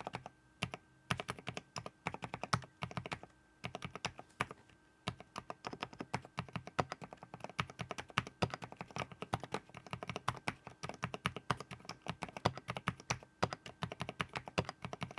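Typing on a Keychron V6 Max full-size mechanical keyboard: a few scattered keystrokes, then about ten seconds of fast, continuous key clacking.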